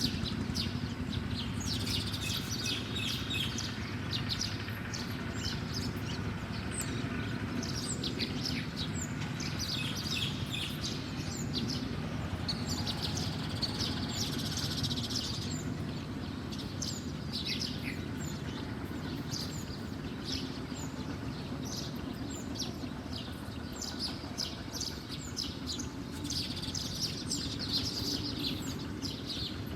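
Small birds chirping over and over, many short high calls scattered throughout, over a steady low background hum.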